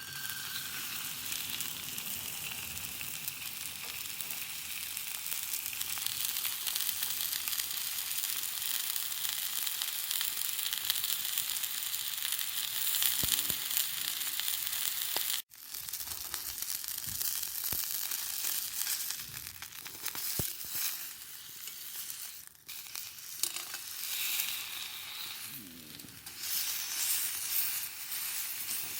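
Pork sizzling in its own fat over a campfire: a steady frying hiss, broken off briefly about halfway through.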